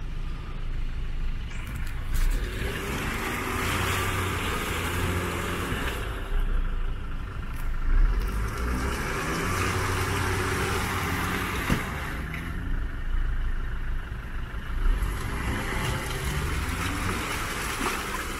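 Land Rover Defender engine pulling steadily under Low Traction Launch as the SUV claws its way out of deep mud ruts it was stuck in, with wet mud churning and spraying from the tyres. A rushing noise swells and fades several times over the engine's low hum.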